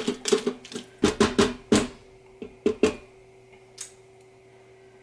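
A plastic spatula stirring ground turkey and cream cheese in a stainless steel Instant Pot inner pot, knocking and scraping against the metal in a quick run of sharp knocks over the first three seconds. The knocks then stop, leaving a low steady hum and one faint click near four seconds in.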